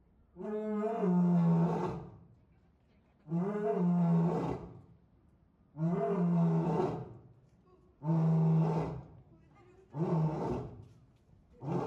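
A lion roaring in a bout of deep, repeated calls, about one every two to two and a half seconds. The calls grow shorter toward the end.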